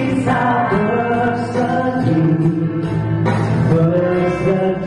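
A man singing into a handheld microphone over musical backing, holding long notes that change pitch about once a second.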